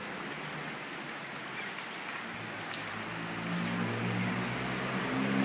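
Steady rushing hiss of a muddy river in full flood, swollen by heavy rain. A faint low hum joins about two seconds in.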